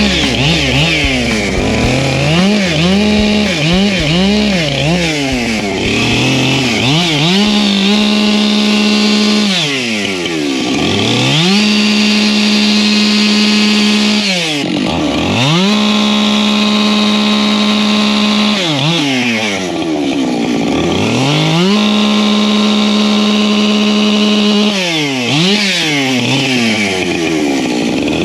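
Husqvarna two-stroke chainsaw cutting firewood, held at full throttle and let drop toward idle, then revved back up between cuts several times, with a quick run of blips near the start.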